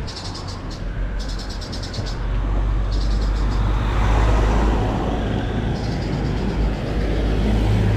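Mountain bike rolling along a concrete road, with heavy wind rumble on the microphone. The rear freehub clicks rapidly in spurts whenever the rider stops pedalling. A motor vehicle passes close by about halfway through.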